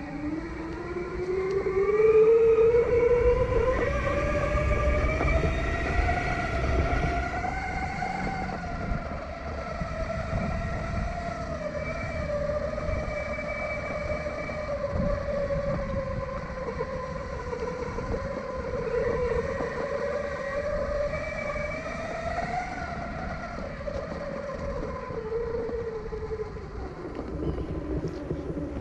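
Electric whine of the H2C off-road skateboard's twin brushless motors, rising in pitch as the board speeds up over the first several seconds, wavering with speed, then dropping away as it slows near the end, over a rough low rumble.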